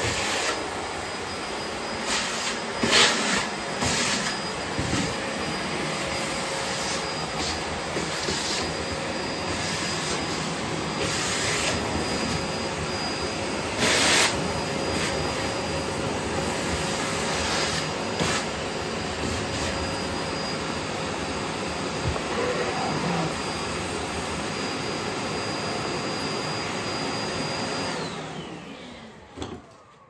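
Bosch BGS21X320 bagless canister vacuum cleaner running with a steady whine, with a few brief louder surges of suction noise. About two seconds before the end the motor is switched off and winds down with a falling whine.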